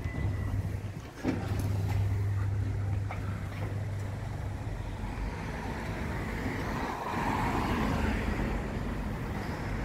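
Town street traffic noise: a steady low hum of vehicles with a few light clicks about a second in and a swell of passing-traffic noise around seven seconds in.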